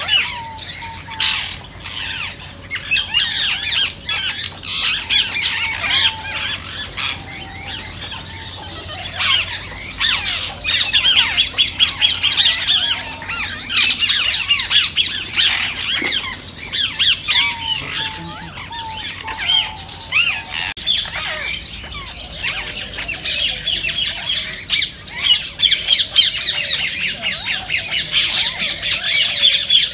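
A flock of rose-ringed parakeets (Indian ringnecks) calling: many high-pitched calls overlapping in a dense, continuous chatter.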